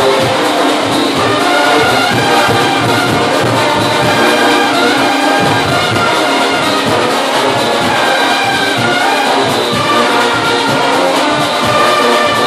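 Junkanoo band rehearsal: a brass horn section playing a melody in long held notes over steadily beating drums, loud throughout.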